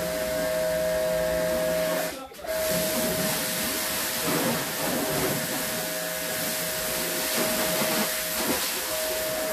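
Electric pressure washer running: the motor-driven pump whines steadily under the hiss of the high-pressure water jet. About two seconds in it stops for a moment as the trigger is let go, then starts up again.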